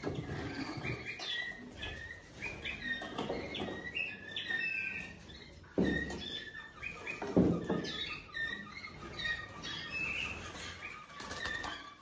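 Canaries chirping in short repeated calls, with a flutter of wings and two thumps, about six and seven and a half seconds in, as cages are handled.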